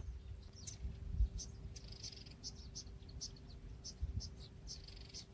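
Small birds chirping: many short, high chirps come at an irregular pace, a few a second, and are fairly faint.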